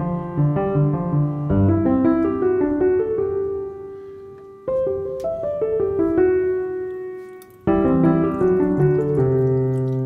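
Background music: a piano piece of chords and melody notes. The phrases fade and then restart suddenly, about halfway through and again near the end.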